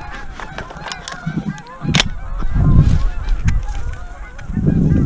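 Canada geese honking, many overlapping calls from a flock. A single sharp click about two seconds in, and low rumbles a little later and near the end.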